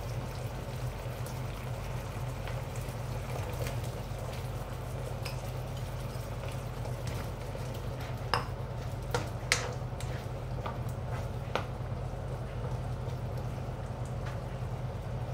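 Coconut milk simmering and bubbling in a wok over a steady low hum. Around the middle, a spatula stirs in cubed squash, clicking sharply against the wok a few times.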